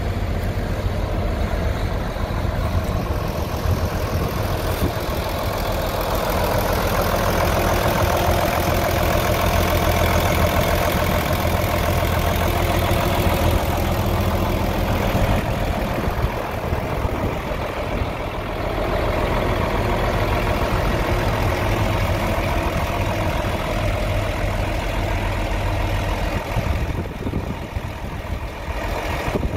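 John Deere 4440 tractor's turbocharged six-cylinder diesel engine idling steadily, its low tone dropping away near the end.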